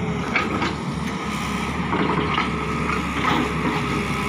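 Tata Hitachi EX200LC hydraulic excavator's diesel engine running steadily under working load, with a few brief sharper sounds over it.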